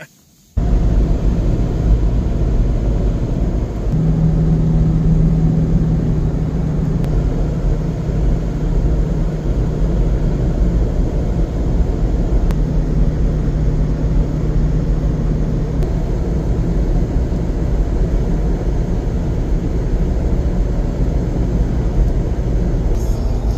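Toyota Tacoma pickup cruising at highway speed: steady low road and engine rumble, with a low hum that comes in for a few seconds at a time in the middle.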